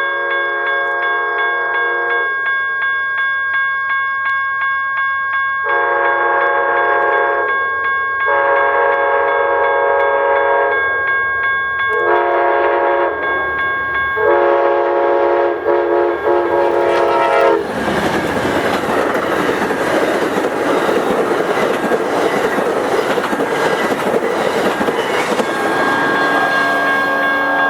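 Multi-chime air horn of Amtrak's lead GE P42DC locomotive sounding five blasts of a few seconds each for a level crossing. Then the passenger train rushes past with loud wheel and rail noise. A crossing warning bell rings steadily throughout.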